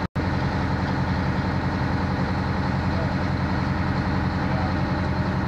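Fire engine's engine running steadily at the pump panel, a steady low hum. The sound drops out for an instant just after the start, a tape glitch.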